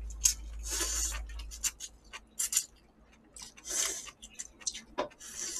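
Instant ramen noodles slurped from chopsticks in several airy bursts. Between the slurps come light clicks of chopsticks and spoons against ceramic bowls.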